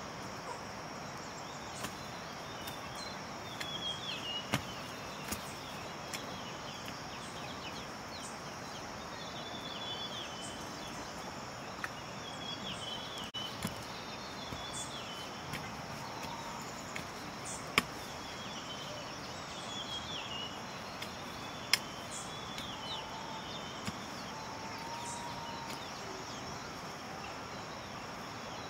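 Rural outdoor ambience: a steady high insect drone with birds chirping now and then. A few sharp knocks from a digging tool striking the soil, two of them louder in the second half.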